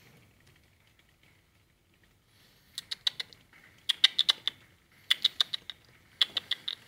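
Plastic saucer exercise wheel turning under a small running rodent, giving rapid clicking rattles in four bursts about a second apart.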